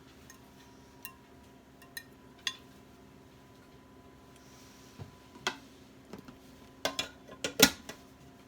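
Kitchen utensils and dishware clinking and knocking. A few light clicks come first, then a quick run of sharper knocks and clinks, the loudest near the end.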